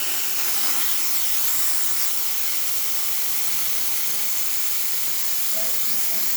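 Profitec Pro 700 dual-boiler espresso machine's steam wand open and blowing steam with a steady, even hiss.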